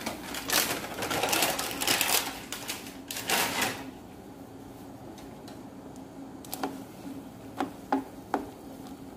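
Steel pot of water at the boil with egg noodle nests just dropped in: loud crackling for the first few seconds, then quieter bubbling. Near the end come a few sharp clicks of chopsticks against the pot as the noodles are stirred.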